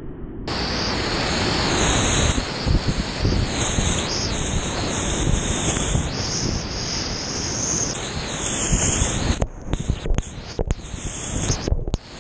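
Whitewater rapid rushing loudly and close around a kayak, with splashing water. At first the sound is muffled, and about half a second in it becomes loud and full. Near the end it cuts out briefly several times.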